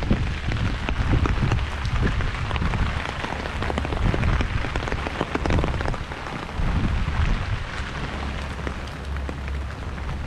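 Steady rain falling on a wet paved road, a dense hiss full of small drop clicks. A strong, uneven low rumble runs beneath it.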